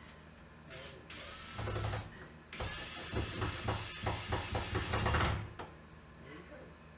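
Handheld power drill running in two bursts, a short one about a second in and a longer one of nearly three seconds, the second with a rapid run of clicks.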